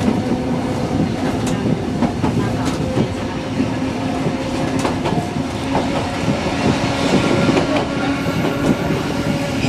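Randen (Keifuku) electric tram running between stations: the wheels click over rail joints under a steady motor hum.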